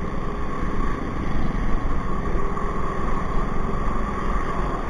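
Motor scooter's engine running steadily at low riding speed, heard from the rider's seat, with a fluttering wind rumble on the microphone.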